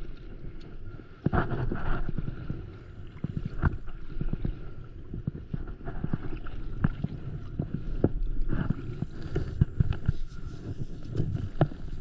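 Paddle strokes in the water beside a stand-up paddleboard: repeated splashes and drips with small sharp knocks, over a low rumble of wind on the microphone.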